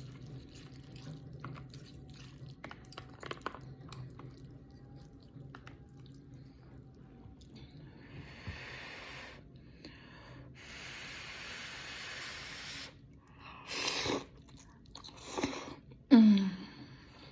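Close-up sounds of eating ramen noodle soup: quiet chewing with small clicks, then long slurps of noodles and broth in the middle and two shorter slurps near the end. Just before the end there is a loud, short sound from the mouth or voice that drops in pitch.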